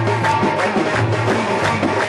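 Egyptian shaabi band music played live: a steady drum beat under a held melody line.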